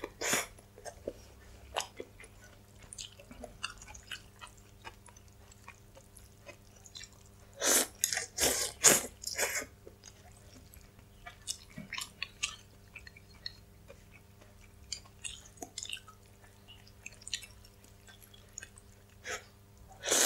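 Close-miked eating sounds of rice noodles: wet chewing and small mouth clicks, with a loud run of noodle slurps about eight seconds in and another starting near the end.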